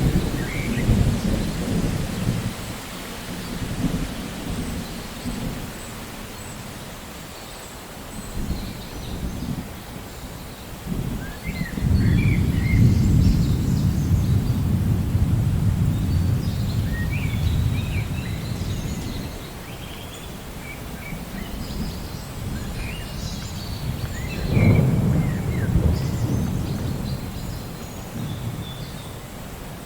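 Steady rain during a thunderstorm, with rolling thunder. Low rumbles swell and fade several times, strongest from about twelve to eighteen seconds in and again around twenty-five seconds.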